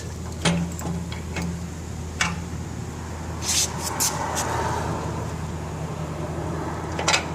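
Steel base pin being worked through a pallet jack's handle mount: scattered light metal clicks and knocks, with a short scraping rustle midway, over a steady low hum.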